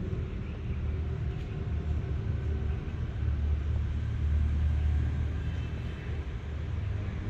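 Low, uneven outdoor rumble.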